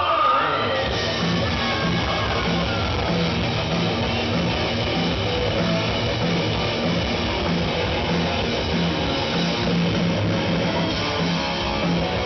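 Live rock band playing an instrumental passage: electric guitars, bass and drums, with a low riff note pulsing in a steady rhythm. There is a short sliding guitar note right at the start.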